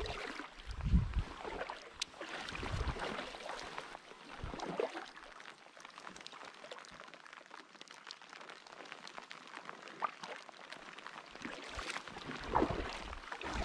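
Packraft paddle strokes splashing in the river, with light rain pattering on the water. The strokes come in uneven surges in the first few seconds and again near the end, with steadier, quieter rain between.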